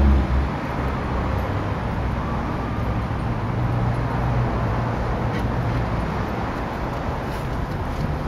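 Steady outdoor background rumble of road traffic, with a low engine hum coming through for a few seconds in the middle.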